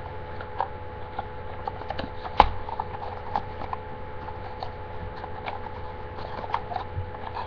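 Small cardboard perfume box being handled and opened by hand: light scraping and clicking of the card, with one sharper click about two and a half seconds in, over a steady hum.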